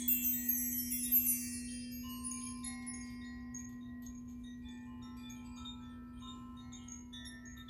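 Metal chimes shimmering in a cascade of high, bright tinkles that fade over the first couple of seconds and then thin to scattered pings. Under them runs the steady, unbroken hum of a crystal singing bowl.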